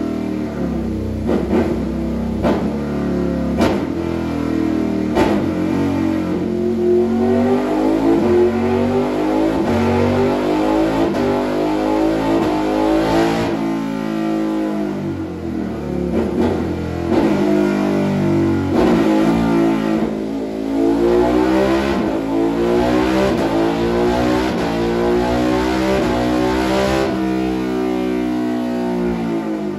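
Ducati Monster 1200S 1198 cc L-twin, breathing through an SC-Project de-cat pipe and silencer, revved under load on a rolling-road dyno during ECU mapping. A few quick blips come first, then the engine note climbs in pitch in long sweeps, each ending in a drop as the throttle is shut.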